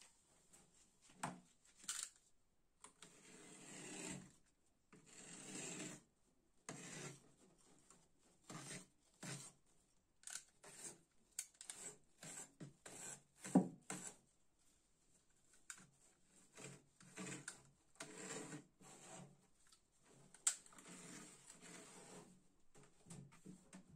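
Hands pressing and rubbing a fibrous filter pad, with a snap-off utility knife scraping and cutting through it along a plastic grille in irregular strokes. A sharp knock about halfway through is the loudest sound.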